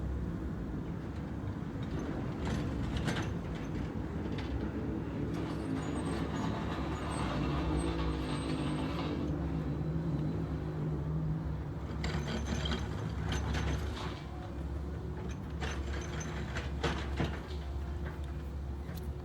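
A heavy engine running steadily, swelling for a few seconds partway through, with scattered metallic clanks and knocks.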